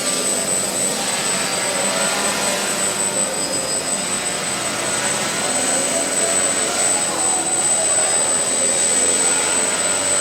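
Multi-rotor drone's propellers whirring steadily in flight, a continuous dense buzzing rush.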